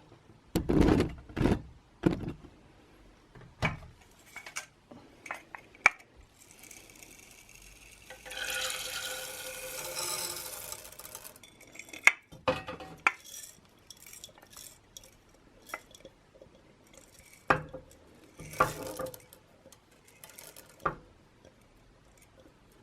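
Beeswax pellets poured into a pan of warm mineral oil, rattling for about three seconds in the middle, among scattered knocks and clinks of a glass jar and pan being handled.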